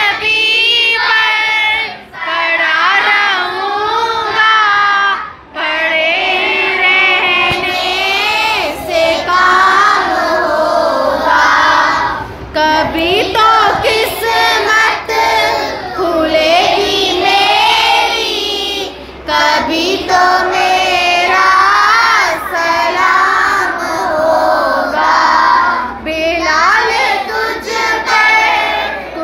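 A group of children singing a naat, an Urdu devotional poem in praise of the Prophet, together without instruments, line by line with brief pauses between lines.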